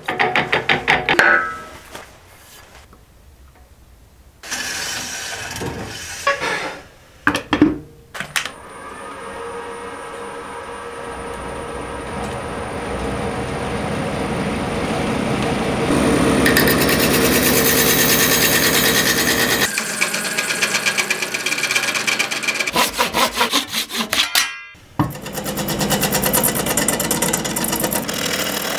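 Wood lathe spinning a cast epoxy-resin and cork vase blank while a hand-held gouge cuts into it: a scraping cut with a fast, even flutter, in several stretches that start and stop abruptly. A faint high steady whine runs for several seconds in the middle.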